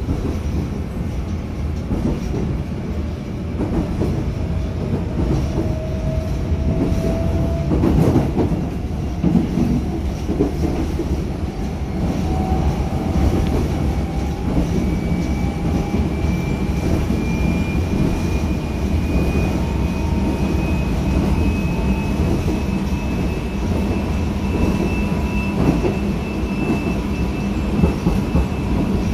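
Seoul Line 4 subway car running, heard from inside: a steady rumble of wheels on rail with occasional knocks, under the whine of its Mitsubishi GTO VVVF inverter and traction motors, which climbs slowly in pitch as the train gathers speed.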